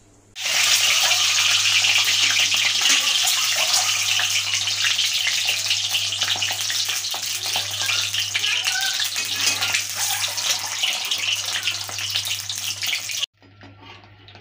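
Whole boiled eggs frying in hot oil in a kadhai: a loud, steady crackling sizzle that starts suddenly about half a second in and cuts off abruptly shortly before the end.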